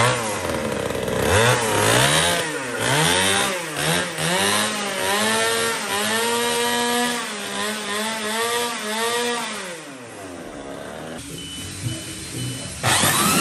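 Small gas-powered RC car engine driving a racing belt sander, revved in quick repeated throttle blips, then held at high revs for a few seconds before winding down about ten seconds in.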